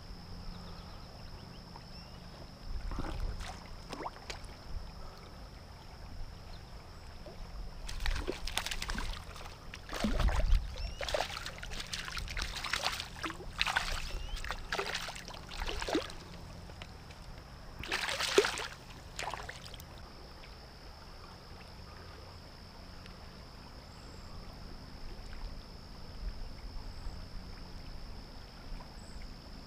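A hooked trout splashing and thrashing at the surface as it is brought into a landing net: a few light splashes early on, a dense run of splashes for about eight seconds, and one more sharp burst a couple of seconds later. Under it runs the steady wash of river current.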